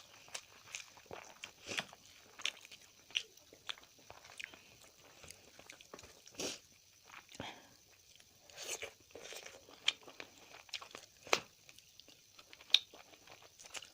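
Close-up eating sounds: chewing, with irregular sharp crunches and bites, a few of them louder.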